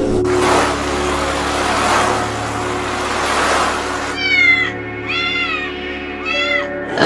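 A house cat meowing three times, each meow a short rising-and-falling call, after about four seconds of steady hiss.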